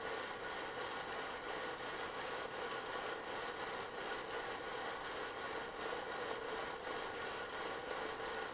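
Metal fidget spinners, a brass two-blade one and a copper-and-brass three-blade one, spinning flat on a wooden desk: a steady whirring hum of their bearings, with the spinners vibrating against the wood.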